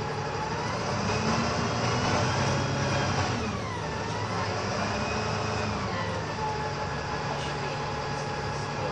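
DAF SB200 Wright Commander single-deck bus's diesel engine and gearbox whining under acceleration. The whine climbs, drops about three and a half seconds in at a gear change, climbs again, then falls away as the bus eases off.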